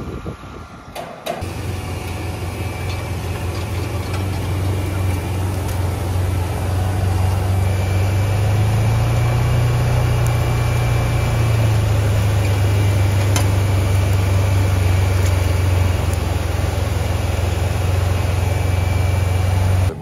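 A heavy farm-machine engine running steadily. It cuts in abruptly about a second in, rises slightly in pitch midway, then holds.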